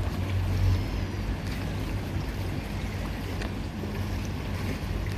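Boat engine running steadily, a low hum, over a haze of water and outdoor ambience with a few faint ticks.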